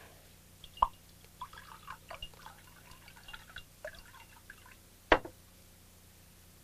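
Liquid, wine, pouring in a thin trickle from a pot into a cup, with small dripping splashes. A sharp knock a little past five seconds as the pot is set down on the wooden table.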